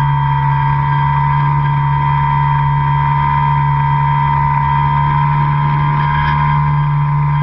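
Radio-controlled airplane's motor and propeller running at a steady throttle, heard up close from a camera mounted on the plane: an unchanging low drone with a high steady whine over it.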